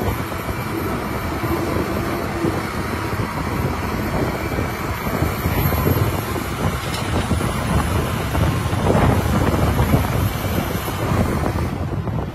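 Caterpillar hydraulic excavator's diesel engine running steadily under load as it digs and loads rock, with a couple of knocks from the bucket and rock past the middle.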